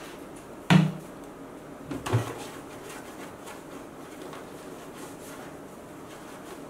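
A plastic sewing machine body being handled and wiped with a cloth: a sharp knock a little under a second in and a softer one about two seconds in, then faint rubbing.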